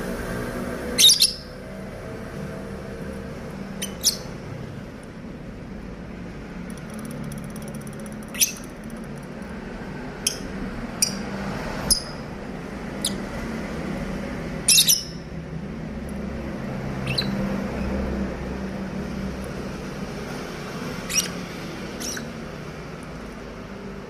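Pet lovebirds, a blue masked and a Fischer's, giving shrill, sharp chirps. The calls come singly or in quick pairs every few seconds, the loudest about a second in and near the middle, over a low steady hum.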